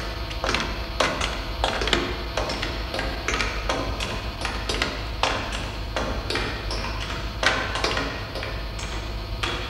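Sci-fi film sound effects: a string of irregular metallic pings and knocks, about one to two a second, each ringing briefly, over a steady low hum.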